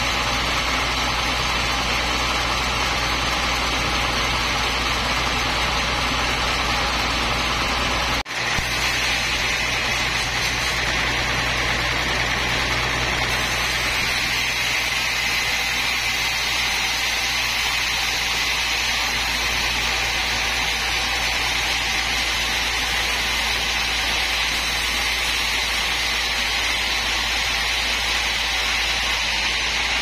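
A large band sawmill running steadily, its motor humming continuously. The sound cuts out for an instant about eight seconds in.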